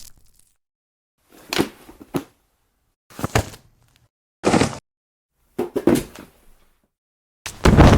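A series of body-fall sound effects: dull, heavy thuds of a sack of potatoes dropped to the ground, standing in for a person collapsing. There are five separate falls a second or so apart, some followed by a smaller second bump, and the one near the end is the loudest.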